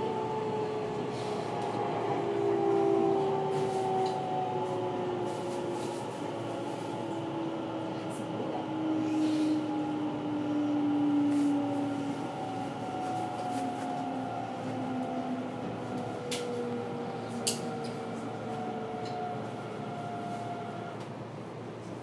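Tokyo Metro 10000 series train heard from on board, its traction motors whining in a slowly falling pitch over the rumble of the wheels on the rails as the train slows for the next station. The whine fades out near the end, and a few sharp clicks come late on.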